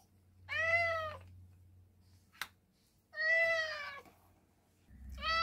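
A domestic cat meowing three times, each meow drawn out for about a second with an arching pitch, and a single short click between the first and second meows.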